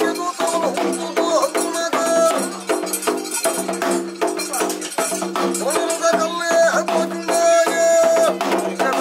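Traditional kola ritual music: a reed pipe plays a bending, wavering melody over a steady drone, with fast drum strokes and rattling percussion.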